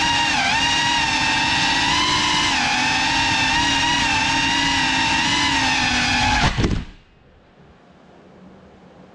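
GEPRC Cinelog 35 cinewhoop FPV drone's motors and ducted propellers whining loudly, the pitch wavering up and down with throttle. About six and a half seconds in there is a brief burst and the motors cut out and stop as the drone comes to rest on a table, leaving only a faint hiss.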